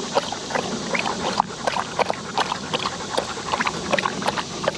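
A black labmaraner dog lapping water from a handheld collapsible bowl, with quick, repeated wet laps and splashes.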